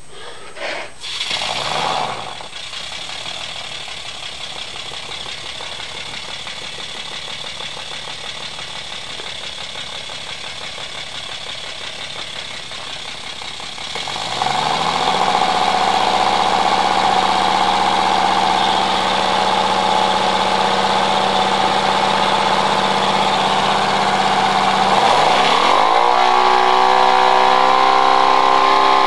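Model six-cylinder radial engine running on compressed air. A steady hiss of air gives way about halfway through to a rising whine as the engine speeds up, then a steady high whir. Near the end the pitch rises again and holds at a higher speed.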